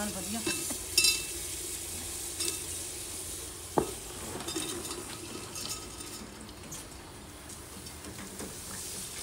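Potato-and-carrot sabzi sizzling in hot oil in a pan while it is stirred, with a few sharp clinks of the spoon against the pan, the loudest about four seconds in.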